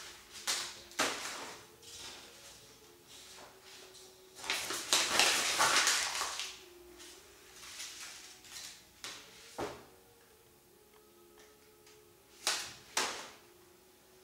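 A sheet of white paper being crumpled and crinkled between two hands, in irregular bursts of crackling. The longest burst comes about five seconds in, with a few short sharp crackles later.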